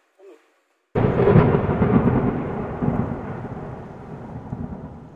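A sudden, loud cinematic boom sound effect about a second in, a deep noisy hit that dies away slowly over several seconds.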